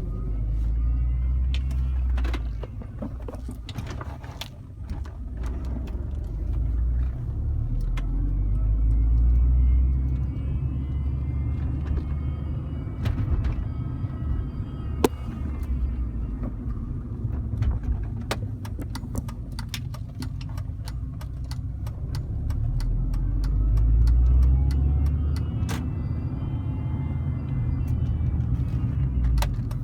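2005 Mini Cooper S driving, with steady engine and road rumble that swells several times. Over it, a faint whine rises and falls in pitch in three spells under acceleration, the strange electrical-sounding noise the owner is trying to trace. Scattered sharp clicks and rattles run through it.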